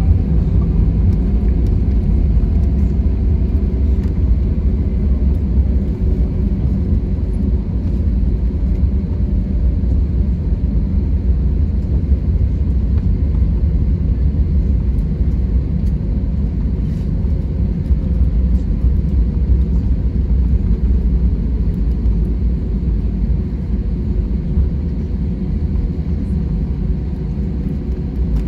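Cabin noise inside an Airbus A320-200 rolling on the ground after landing: a steady low rumble from the engines and the wheels on the pavement. A faint engine whine falls in pitch over the first few seconds, and the noise eases slightly toward the end as the jet slows.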